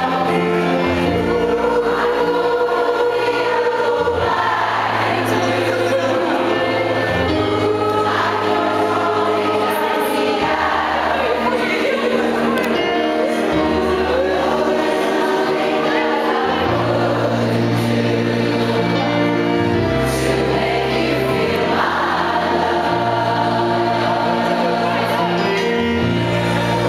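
Choir of mostly women singing together over accompaniment, with a low bass line that moves to a new note every few seconds.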